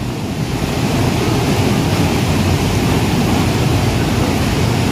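Small waterfall pouring into a rock pool: a loud, steady rush of falling water, heaviest in the low end.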